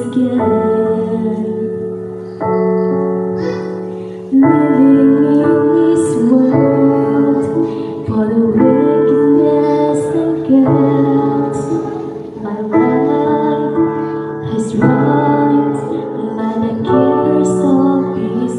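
A woman singing a slow worship song into a microphone over keyboard chords that change about every two seconds.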